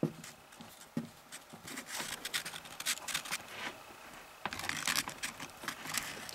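Hands splicing mains wires into the converter's wiring: irregular scraping and small clicks, with a sharp knock about a second in and denser scraping and rustling from about four and a half seconds in.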